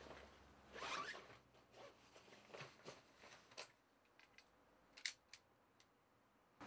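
Faint rustling and scraping of a large black bag being handled and pushed down into a hole in the floor. The loudest rustle comes about a second in, followed by a few light clicks and taps.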